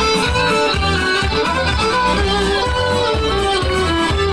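Violin playing a lively melody over an accompaniment with a steady low beat, with the crowd clapping along.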